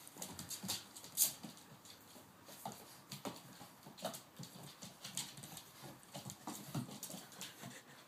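Two boxer puppies playing on a hardwood floor: their claws click and skitter in quick, irregular patters as they scramble after a rope toy, with a sharp knock about a second in and a few short puppy growls.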